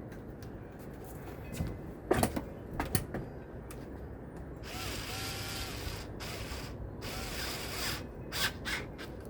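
Screws being driven to fasten a ceiling fan blade: a few sharp metal clicks, then about three seconds of a ratcheting rasp, and more clicks near the end.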